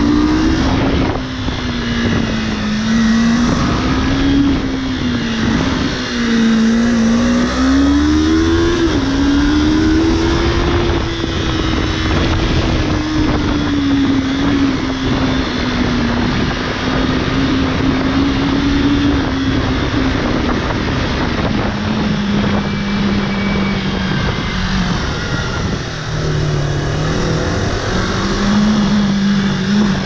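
Motorcycle engine running under changing throttle, its pitch rising and falling, climbing and holding high in the first half and dropping lower later on, over a steady rush of noise.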